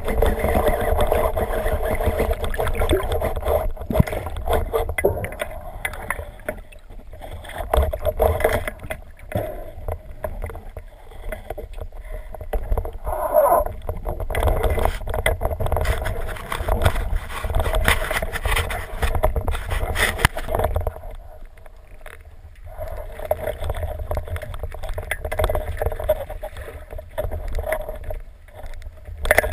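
Muffled underwater noise picked up by a camera mounted on a speargun: a low rumble of water moving over the camera that swells and fades as the diver swims.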